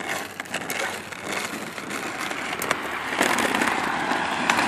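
Small hard wheels rolling over rough pavement, a gritty rattling rush with many small clicks that grows louder about three seconds in.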